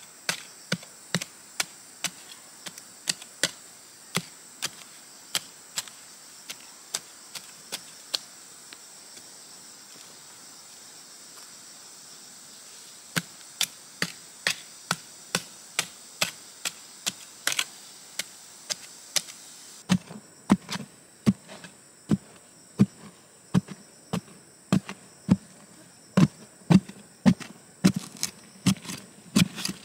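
Repeated sharp strikes of a metal blade chopping into hard, dry clay soil, about two a second with a pause midway, the strikes getting heavier and thuddier later on. Crickets or other insects buzz steadily at a high pitch behind them.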